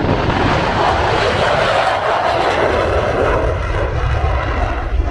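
Airplane engine noise from an aircraft flying over, swelling in the first couple of seconds and then easing off, over a steady low rumble of wind on the microphone.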